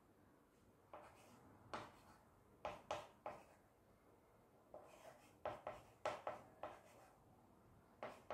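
Chalk writing on a small blackboard: short scratchy strokes and taps in scattered groups, with a quick run of several strokes in the middle.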